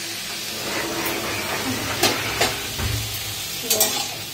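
Steady hissing from a pan cooking on a gas stove. Several sharp metal clinks of a utensil against the pan come in the second half.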